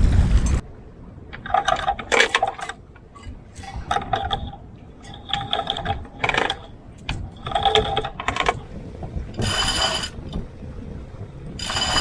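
Wind noise on the microphone cuts off abruptly just after the start, followed by repeated short runs of metallic ratcheting clicks, four runs in the first eight seconds and two louder, harsher bursts near the end.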